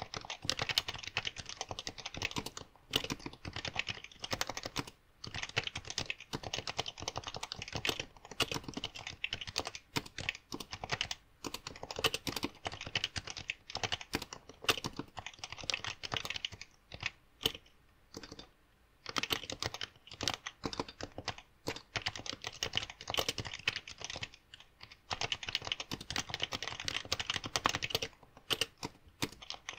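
Fast, continuous typing on a Happy Hacking Keyboard (HHKB), many rapid keystrokes a second, with a short pause a little past halfway.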